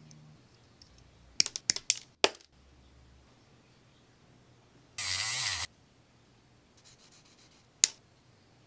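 Close handling sounds of small model-kit parts and hobby tools: a quick cluster of sharp clicks about a second and a half in, a short hiss lasting under a second in the middle, and one more sharp click near the end.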